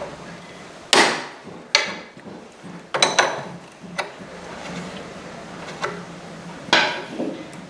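Irregular sharp metallic knocks and clanks of hand tools against motorcycle parts, about seven separate strikes, each ringing briefly, over a faint low steady hum.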